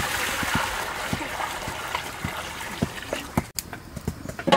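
Water being poured from a plastic bucket into a large aluminium cooking pot, a steady splashing that cuts off abruptly about three and a half seconds in. Near the end there is a sudden metallic clank as the aluminium lid is set on the pot.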